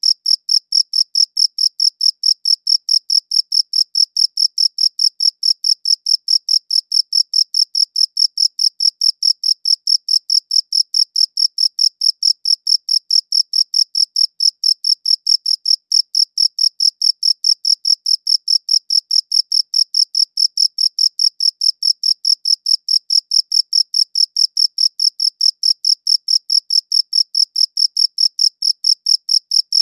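A cricket chirping: high-pitched pulses repeating in a steady, even rhythm of about four to five a second, unbroken throughout.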